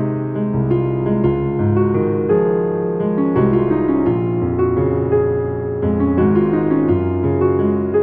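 MIDI-rendered piano playing a pop ballad arrangement: a low left-hand bass line and chords under a right-hand melody, with overlapping sustained notes.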